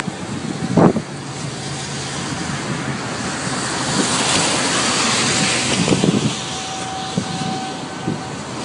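Storm wind and rain noise mixed with car tyres hissing on a wet road. The hiss swells around the middle, and a few low thumps come through.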